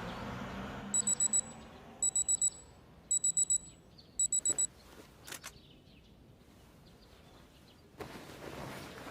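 Digital alarm clock beeping: four bursts of four quick, high-pitched beeps about a second apart, then it stops.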